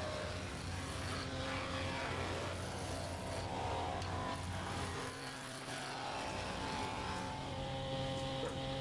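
Electric wood jointer running without cutting, a steady motor and cutterhead hum; the low hum dips briefly about five seconds in.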